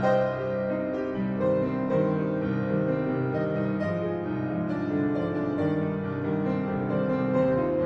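Upright piano being played solo: a dense, unbroken passage of many overlapping notes.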